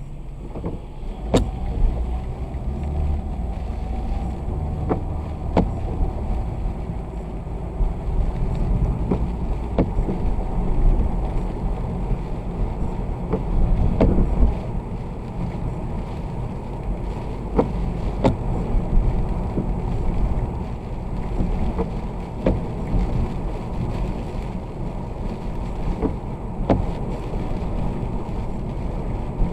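A vehicle driving in the rain: a steady low rumble of engine and road noise, with scattered sharp ticks at uneven intervals.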